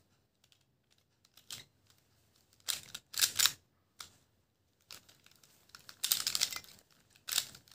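Plastic triangular Rubik's-type twisty puzzle being turned by hand: short bursts of clicking and clacking as its layers snap round, in several quick groups with pauses between.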